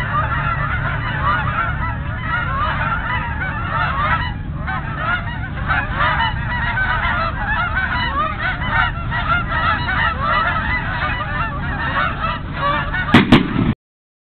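A flock of Canada geese honking, many birds calling over one another in a continuous chorus, over a steady low rumble. Near the end two sharp knocks come close together, and the sound then cuts off suddenly.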